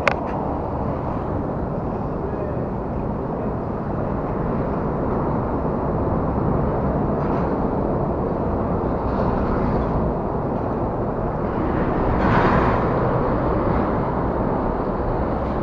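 Steady rumble of lorry traffic on the bridge overhead, swelling louder for a moment near the end.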